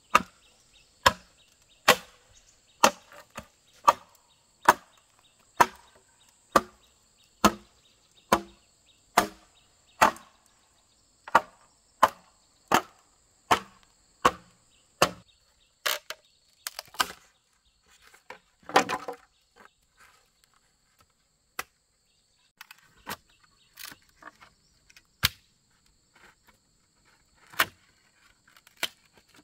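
Bamboo being chopped, steady sharp strikes a little under one a second, turning sparse and irregular after about sixteen seconds, with a splintering crackle near nineteen seconds. Insects drone steadily and faintly behind.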